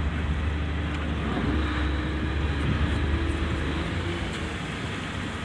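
Lifeboat's diesel engines running steadily at low speed, a deep rumble under an even hiss.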